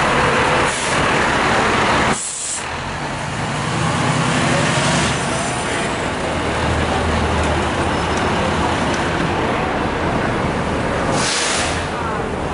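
Fire truck's diesel engine running as the rig pulls away, with short air-brake hisses about two seconds in and again near the end.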